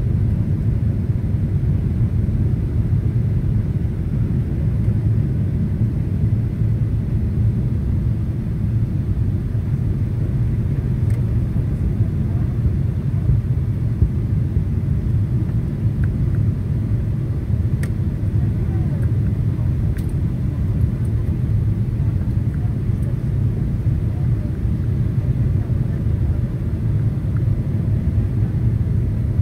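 Steady low rumble of an airliner cabin in flight on approach, with a few faint clicks in the middle.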